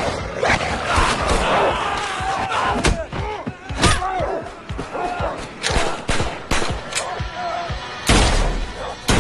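Action-film fight soundtrack: a rapid series of hard thuds and blows over music, ending with a loud gunshot about eight seconds in.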